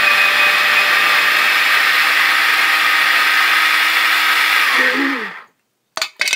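Proctor Silex mini food chopper's motor running at full speed while its blade chops chickpeas into a paste. It stops about five seconds in, winding down in pitch, and a few sharp clicks follow near the end.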